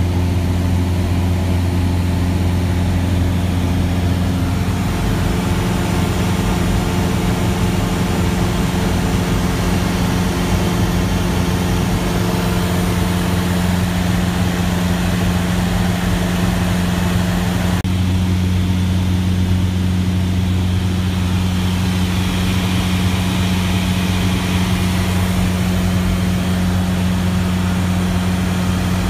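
Single-engine Cessna's engine and propeller droning steadily at cruise, heard inside the cabin: a deep, even hum with a higher note above it.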